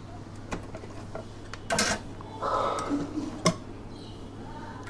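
Handling noises of a circuit board and a small heatsinked MOSFET on a workbench: scattered light clicks and clinks, two short rustling bursts in the middle, and one sharp click about three and a half seconds in. A steady low hum runs underneath.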